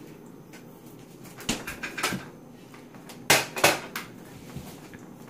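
A few knocks and clunks of kitchen items being handled, with the two loudest in quick succession about three and a half seconds in.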